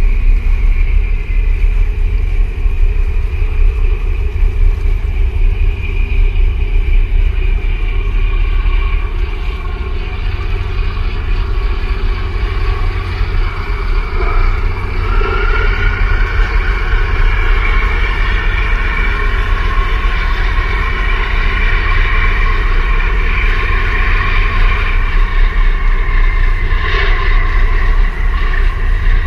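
A tugboat's engines drone as it passes close by, with a mechanical whine that grows stronger and rises slightly about halfway through, over heavy wind rumble on the microphone.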